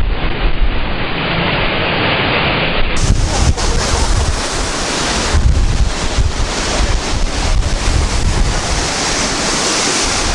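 Rough Baltic Sea surf breaking on the shore and against wooden groynes, with strong wind buffeting the microphone in a steady low rumble.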